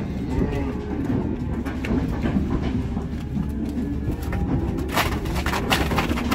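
Black cows and calves moving around a dirt pen, lowing faintly, over a steady low rumble. A cluster of sharp knocks comes about five seconds in.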